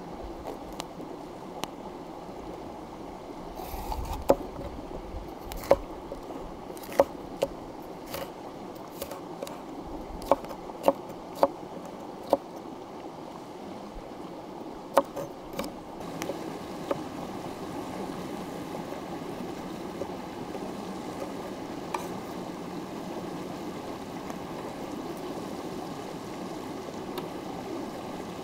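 Stream running steadily over rocks, with a dozen or so sharp, irregular clicks and knocks in the first half.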